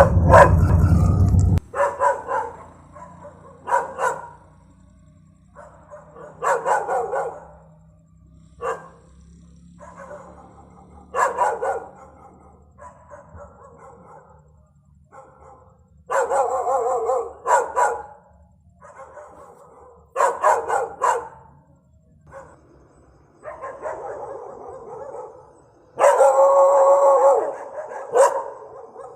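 An angry dog barking aggressively in repeated outbursts, some short and sharp, others drawn out over a second or two. A low rumble is heard in the first second or so.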